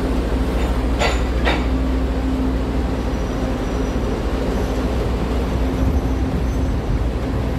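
Freight train of loaded ballast hopper wagons rolling past close by: a steady rumble of wheels on rail, with two sharp clacks about a second in.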